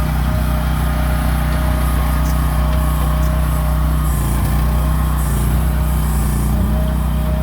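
Small gasoline engine of a MIVA VA13C mini excavator running at a steady speed.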